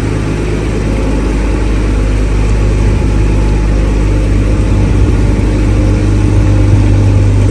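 Boat travel lift's engine running steadily while hoisting the catamaran out of the water: a deep, even engine hum that grows slightly louder toward the end.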